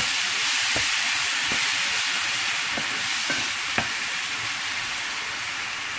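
Chopped bell peppers and onion with fresh tomato puree sizzling in a nonstick frying pan while being stirred, with a few light taps of the utensil against the pan. The sizzle slowly dies down.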